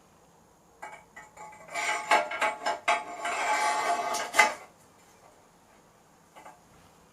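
Bike fork with crown race and lower headset bearing being offered up into the frame's head tube: a few light metal clicks, then a couple of seconds of dense metallic clinking and scraping as the steerer slides in and the bearing seats.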